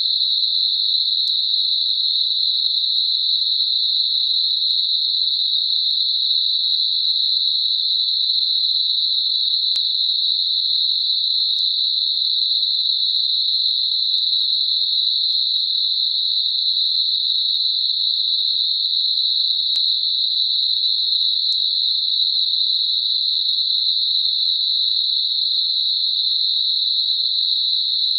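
Generated 4 kHz narrow-band noise, a tinnitus masker: a steady, even, high-pitched hiss confined to a narrow band, with no low or very high sound around it.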